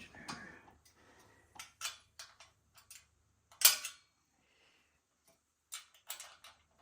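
Hand tools and metal motorbike parts clinking and clanking during teardown of the front forks: scattered light clicks, one loud metallic clank a little over halfway, and a quick run of clinks near the end.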